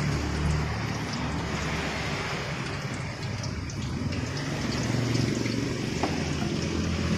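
Tofu frying in hot oil in a wok, a steady sizzle over a low rumble, with one small knock near the end.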